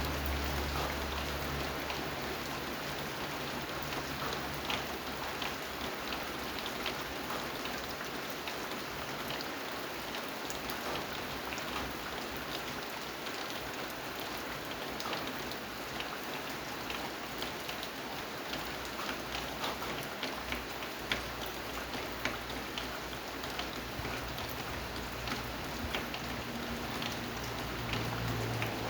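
Steady rain falling, with many individual drops ticking sharply on a hard surface. A low rumble fades out over the first couple of seconds and returns near the end.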